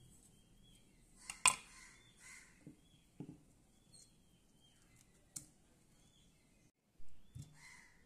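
Kitchen knife scraping seeds out of a slice of yellow cucumber and knocking them off into a coconut-shell bowl: a few sharp clicks and knocks, the loudest about one and a half seconds in. Birds calling faintly in the background.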